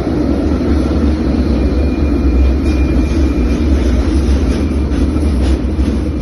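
Helsinki tram running on its rails: a steady low rumble, with a faint high tone about two seconds in and a few light clicks near the end.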